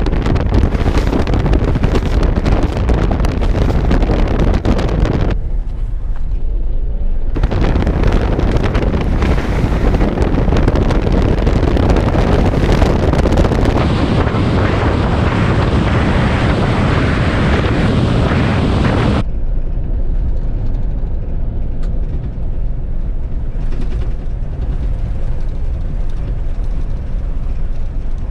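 Jeep Wrangler Rubicon driving off-road: a low engine and tyre rumble under heavy wind rushing on the microphone. The rushing hiss drops away sharply for a couple of seconds about five seconds in, then again from about nineteen seconds, leaving mostly the low rumble.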